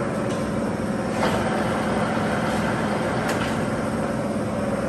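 Clausing Colchester 15-inch lathe running with its chuck turning at a slow spindle speed: a steady machine hum, with two faint ticks.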